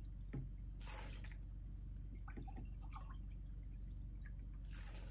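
White vinegar poured from a plastic gallon jug into a small glass measuring jar: a faint liquid trickle, with two brief louder swells about a second in and near the end.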